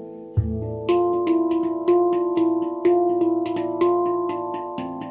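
Baopan handpan in a low A2 tuning played by hand: a deep bass note struck about half a second in, then a steady pattern of ringing, overlapping notes accented about once a second, with quick light finger taps between them.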